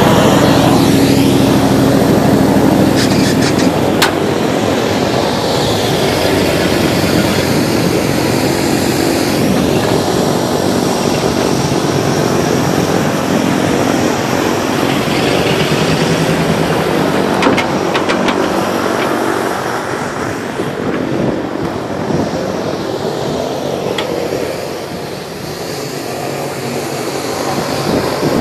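Engines running steadily, with a few sharp clicks about four seconds in and again around eighteen seconds in.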